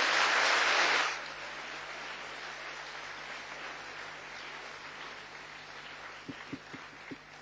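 An audience applauding: clapping that is loudest in the first second, then carries on more softly and slowly dies away.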